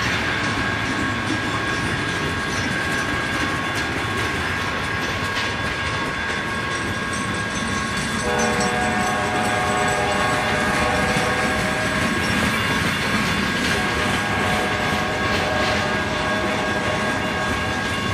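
Freight train rolling past a grade crossing, with steady wheel-on-rail noise and clicking over the rail joints. About eight seconds in, a locomotive's multi-chime air horn sounds a long chord for several seconds, then again more briefly a few seconds later.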